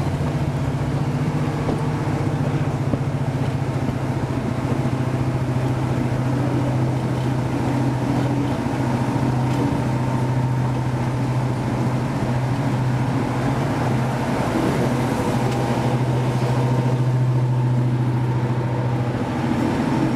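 Class 55 Deltic locomotive's twin Napier Deltic two-stroke opposed-piston diesel engines running steadily with a strong low drone, heard close from the open window of the coach behind it.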